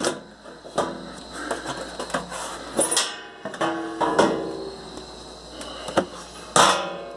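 Side cover of a Dell Optiplex GX620 mini tower being pulled loose and lifted off the chassis: scattered clicks and knocks, a sliding scrape about three seconds in, and a louder scrape near the end.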